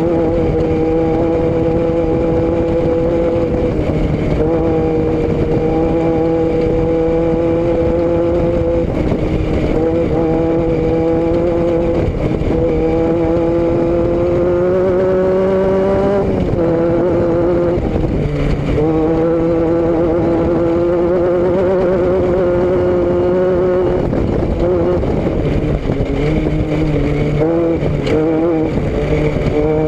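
A vehicle engine running steadily under way, its pitch climbing slowly and then dropping back about sixteen seconds in, with smaller rises and falls after that.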